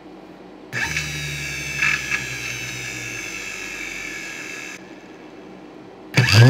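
24-volt high-RPM DC servo motor with a large drill chuck on its shaft, run from an arc welder's DC output. It starts with a whine under a second in and runs steadily, with two brief clicks about two seconds in, then cuts off at about five seconds. It starts again near the end, spinning up with a rising whine, louder than before.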